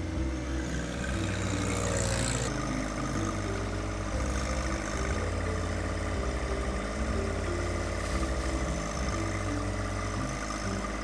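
John Deere 1025R compact tractor's three-cylinder diesel engine running steadily while the front-end loader works.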